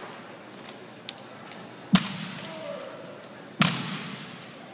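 Two loud, sharp cracks about a second and a half apart, each echoing through a large hall, after a few light clicks. They come from an armed drill squad striking in unison, with drill rifles and heels.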